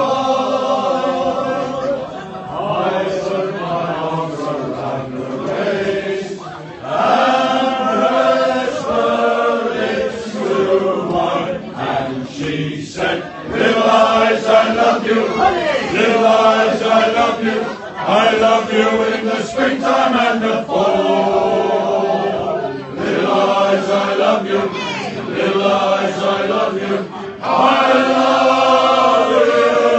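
A crowd of men and women singing together in a pub, loud sung phrases with short breaks between them.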